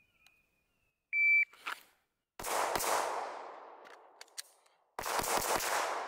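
Shot timer beep, then two pistol shots about half a second apart. Two light clicks follow, then a fast string of four pistol shots, each ringing off with a long echo across the range.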